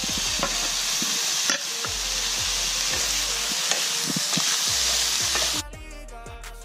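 Diced tomatoes sizzling as they go into a hot frying pan and are stirred in with a wooden spatula, over background music. The sizzle cuts off suddenly about five and a half seconds in, leaving only the music.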